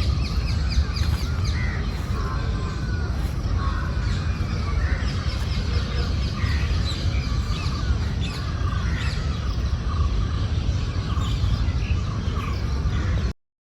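A chorus of many birds chirping and calling at once, over a steady low rumble. It cuts off suddenly near the end.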